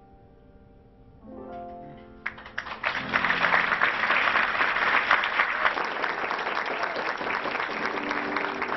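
Soft instrumental music closes on a last chord, then applause starts about two seconds in and carries on steadily, much louder than the music.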